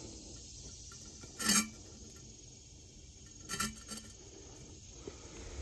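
Two short, sharp clinks about two seconds apart, the first the louder, like a hard object knocking against the clay pipe.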